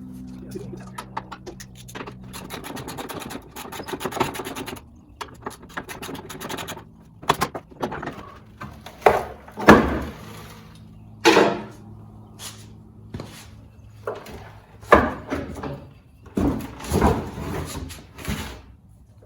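A spare tire being worked loose and pulled out of its under-chassis carrier: first a quick run of clicks, then scraping and rubbing of rubber and metal broken by several sharp, loud knocks.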